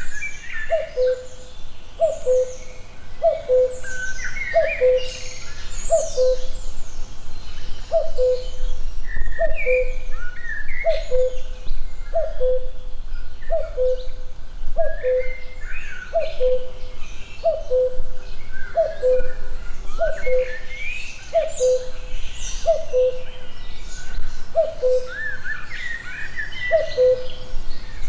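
Woodland birdsong: a low two-note hooting call, a higher note falling to a lower one, repeated steadily about once a second, with a brief gap near the end. Over it run the varied chirps and trills of small songbirds.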